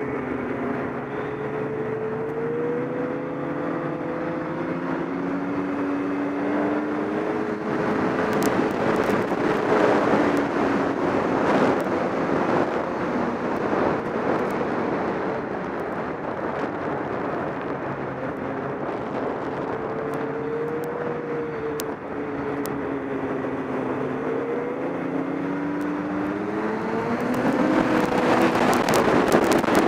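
Snowmobile engine running under way, its pitch rising and falling as the throttle changes, with a rough rushing noise over it that gets louder near the end.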